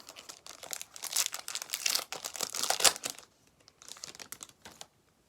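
Plastic wrapper of a baseball card pack being torn open and crinkled: dense crackling for about three seconds, then a few softer rustles.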